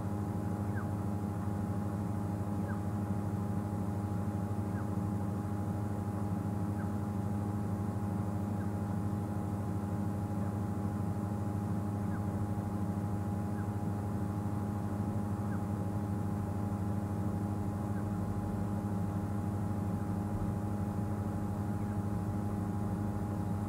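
Safari vehicle's engine idling steadily, a constant low hum that does not change.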